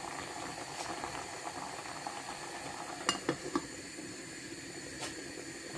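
Steady hiss of food cooking on the stove, with a few light clinks of a glass pot lid being set on a stainless pan, about three seconds in and again near the end.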